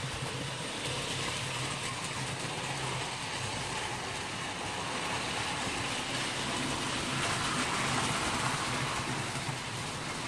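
Hornby Dublo three-rail OO-gauge model train running: a steady motor hum and the run of wheels on metal track, growing louder around seven to nine seconds in as a train passes close, then easing a little.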